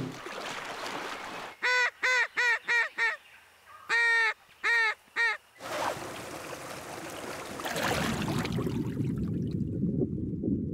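Goose honks: a quick run of five calls, a short gap, then three more. A steady rush of flowing stream water follows.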